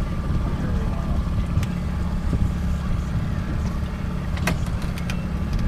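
Boat engine running steadily with a low rumble, with a few sharp clicks about one and a half seconds in and a quick cluster of them near the end.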